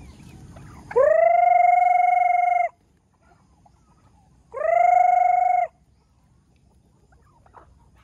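Rooster crowing twice: a long crow of about a second and a half, then a shorter one of about a second, each rising briefly at the start and then held on a steady pitch.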